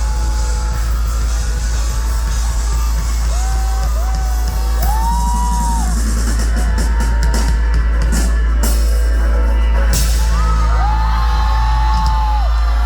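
Live rock band playing loudly in a concert venue: drum kit with a cluster of cymbal hits in the middle, heavy bass, and a melody line with gliding notes.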